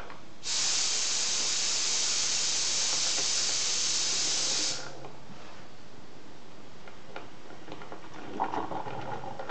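A steady hiss that starts abruptly about half a second in and cuts off sharply after about four seconds.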